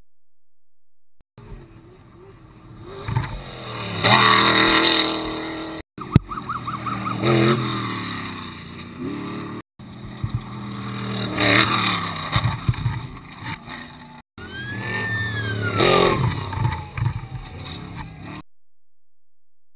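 Unlimited-class desert race trucks at full throttle, engines revving hard as each one hits the jump and flies past. There are four short cuts, each building to a loud peak. In the last one the engine pitch slides steadily down as the truck goes by.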